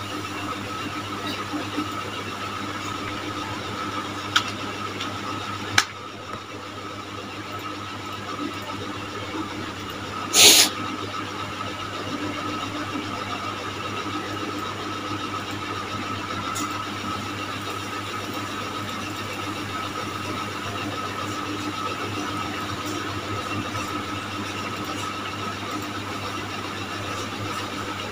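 Steady background hum and hiss with a faint constant whine, broken by a couple of sharp clicks and one short, loud rush of noise about ten seconds in.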